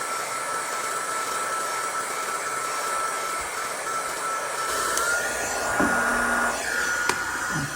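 Heat gun running steadily with a blowing rush and a thin, steady whine that steps slightly higher about five seconds in. Two sharp clicks come near the end.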